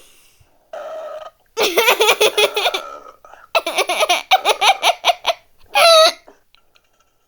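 Burping close into a microphone: a short burp about a second in, then bursts of laughter.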